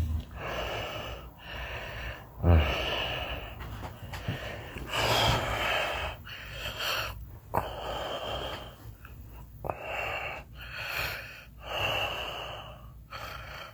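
A sleeping man snoring: a run of noisy, wheezy breaths about once a second, with one louder low rattling snort about two and a half seconds in.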